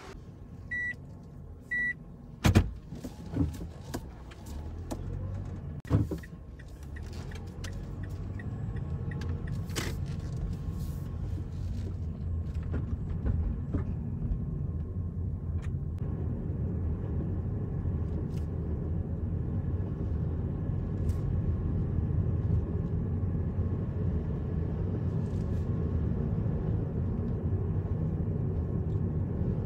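Two short electronic beeps and a few sharp clunks, the loudest about two and a half seconds in, then the steady low rumble of engine and tyre noise heard inside a car as it drives off along the road.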